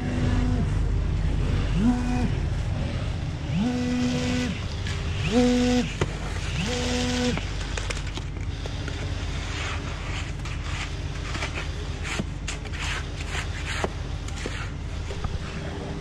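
Skid-steer-powered concrete line pump running under load with a steady low engine rumble. A humming tone rises, holds and falls five times over the first half, each time about a second long, then stops. Scattered sharp knocks follow in the second half.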